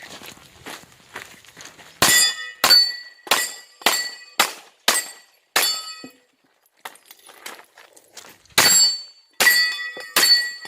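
Pistol shots fired in quick strings, each followed at once by the ring of a struck steel target. Seven shots come about 0.6 s apart, then a pause of about 3 s, then three more.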